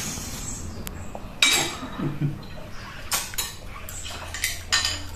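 Fork and snail shells clicking and tapping against a dinner plate, a series of short sharp clinks at irregular moments.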